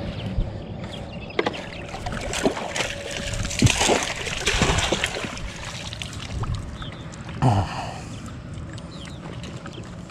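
Water splashing and sloshing at the side of a bass boat as a hooked bass thrashes beside the outboard motor, loudest a few seconds in, with scattered knocks against the boat.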